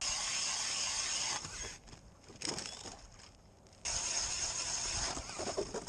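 Ice auger boring into lake ice, its blades shaving and crunching through the ice in two long bouts of drilling with a short pause and a brief scrape between them.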